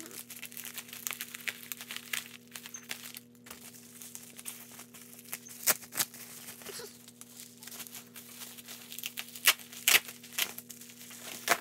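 Packaging of a mailed parcel being crinkled and torn open by hand: irregular crackling, with a few sharper snaps in the second half.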